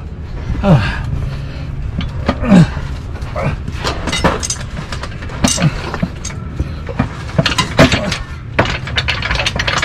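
Irregular metal knocks, clunks and scrapes as a Toyota Hiace's manual gearbox, resting on a jack, is pushed and worked in to mate its input shaft with the newly fitted clutch.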